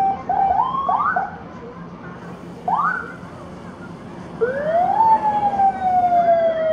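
Siren sounds going off: a few short rising whoops, then a tone that climbs and slides slowly down in one long glide. These are prank sirens, meant to scare customers.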